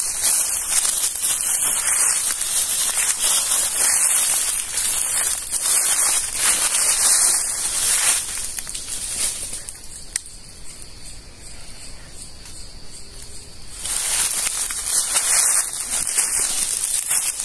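Footsteps crunching through dry leaf litter and undergrowth on a forest trail, a steady rustling crackle that stops for about four seconds past the middle and then starts again.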